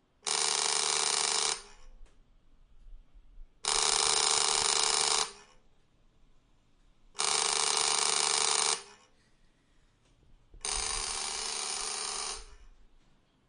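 Vintage doorbell ringing in four long bursts, each about a second and a half, with a pause of about two seconds between them; the last ring is a little quieter.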